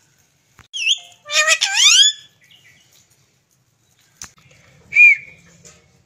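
Rose-ringed (Indian ringneck) parakeet calling: a short whistle, then a loud call that slides down in pitch about a second and a half in, and a single sharp whistle near the end.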